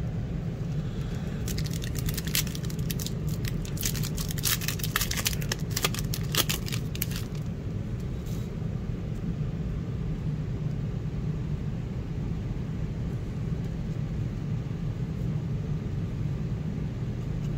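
Fortnite Series 3 trading-card pack wrapper crinkling and tearing open, a dense run of sharp crackles lasting about six seconds, over a steady low hum that carries on alone afterwards.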